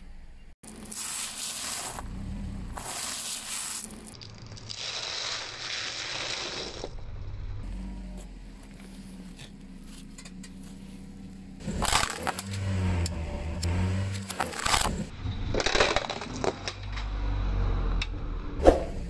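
Dry crunching and crackling of crushed waffle cones and crumbs being handled, in short stretches that cut in and out. A sharp crack near the end is the loudest moment.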